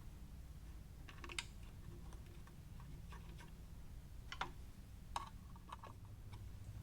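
Faint, scattered clicks of a Phillips screwdriver and small screws as the two screws holding a drill press's power switch are driven back in, over a steady low hum.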